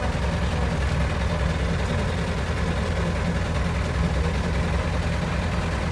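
Engine of a caged tour vehicle idling steadily while stopped: an even, pulsing low rumble.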